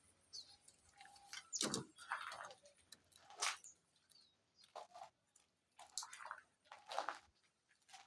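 Faint, scattered short sounds: a few bird chirps among brief clicks and knocks.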